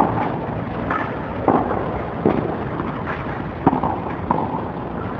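Tennis balls struck by rackets and bouncing on a clay court during a doubles rally: a series of sharp knocks about half a second to a second apart, over a steady background noise.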